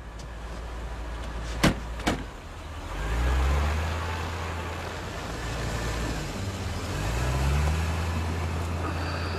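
Two car doors slam shut in quick succession, then an old sedan's engine revs up as the car pulls away, its pitch climbing twice.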